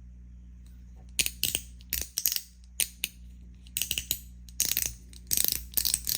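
Mechanical push slider fidget toy (a PAL) slid back and forth by hand: spring-loaded balls snap into detents, giving quick clusters of sharp clicks starting about a second in.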